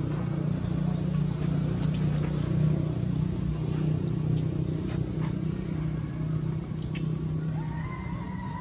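Steady low hum of a motor vehicle engine running nearby, with a few faint clicks; near the end a thin, wavering high tone starts over it.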